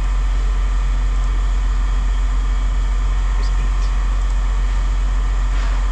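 An engine running steadily with a deep, even hum.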